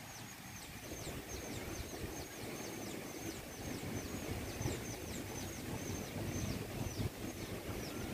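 Strong gusty wind rumbling and buffeting the microphone. Over it, a thin high chirp repeats about three times a second.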